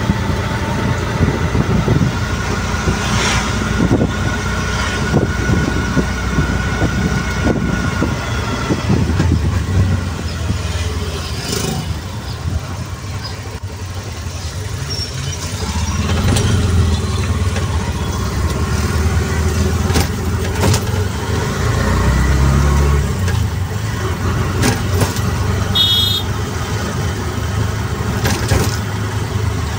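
City road traffic heard from a moving auto rickshaw: steady engine rumble from the rickshaw and the vehicles around it, swelling now and then. A short, high horn beep sounds near the end.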